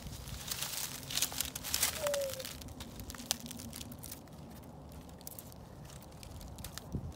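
Dry leaf litter and twigs crackling and rustling, dense for the first two or three seconds, then thinning to a few faint crackles.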